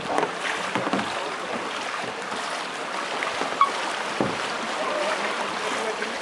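Canoe polo kayaks and paddles splashing and jostling in pool water over a steady hiss, with a few sharp knocks of paddles and boats, the loudest about three and a half seconds in.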